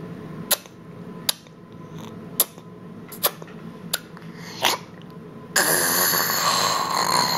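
A toddler making funny mouth and breath noises: six short sharp puffs at roughly one-second intervals, then a longer, louder noisy blow lasting about two seconds near the end.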